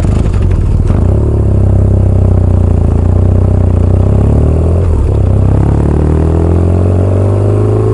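Motorcycle engine running under way, its pitch dipping about five seconds in and then rising steadily as it accelerates again.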